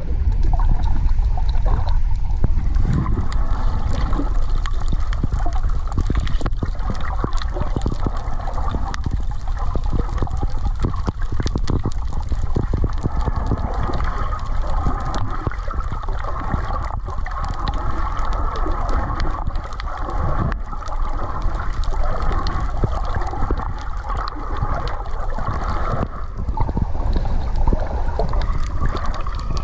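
Underwater sound picked up by an action camera in its waterproof housing: a muffled, steady rush and gurgle of water, heavy in the low end, with a dense crackle of small clicks.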